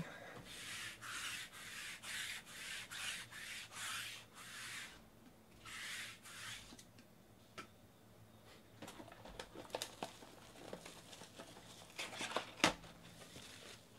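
Rapid rubbing strokes, about two a second, stopping about five seconds in, then light clicks and taps from hands handling a sports-card box, with one sharper tap near the end.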